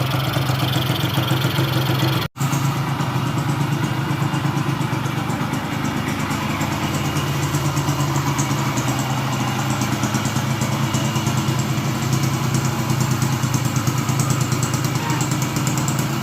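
1979 Yamaha YB100's single-cylinder two-stroke engine idling steadily just after its air and fuel mixture screws have been adjusted, the idle now even rather than wild. There is a momentary break in the sound a little over two seconds in.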